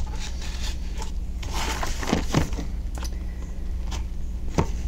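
A small rotary cutter slitting the packing tape along a cardboard box's seam, with the box rasping and knocking against the desk and a sharp knock near the end. A low steady hum runs underneath.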